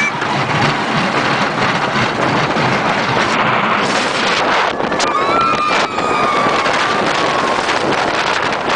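Wind rushing over the microphone and the rumble of a wooden roller coaster train running along its track, heard from a seat in the train. About five seconds in, a rider gives a long high scream that slowly falls in pitch and fades.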